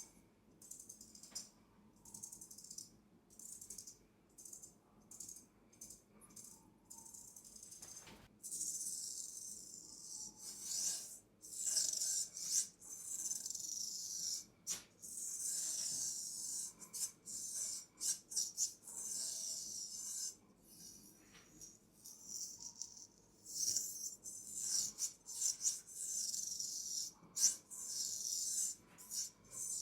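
Straight razor scraping over skin in repeated strokes. The strokes are short and faint for the first eight seconds or so, then longer and louder with brief gaps between them.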